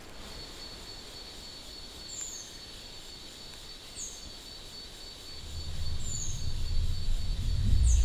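Forest ambience: a steady high-pitched insect drone, with a short falling bird call repeated about every two seconds. From about five seconds in, a low rumble swells up and becomes the loudest sound.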